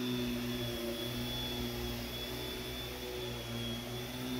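Vacuum cleaner running steadily: a motor hum with a high whine.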